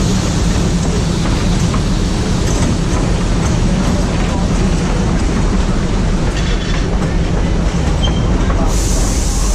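Narrow-gauge Matheran Hill Railway toy train running, heard from an open carriage doorway: a steady rumble of wheels on the track. A burst of high hiss comes in near the end, as the train draws alongside a station platform.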